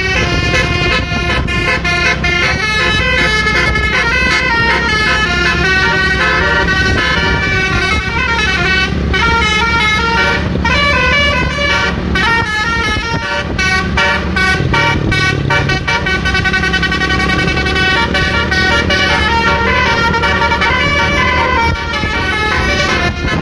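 Indonesian basuri telolet bus horn, a multi-tone air horn, playing a fast melody of short stepping notes over a steady deep bass, mixed as a jeger remix.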